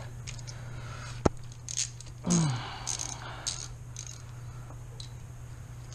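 Hand tools and bolts being handled on an engine's wiring grounds: a sharp click a little over a second in, then scraping and rattling, with a short low grunt in the middle, over a steady low hum.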